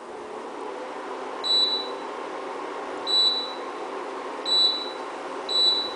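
IH GTA12 induction cooker running: its cooling fan and coil give a steady hum with a faint whine. Four short high control-panel beeps sound over it, spaced about a second and a half apart.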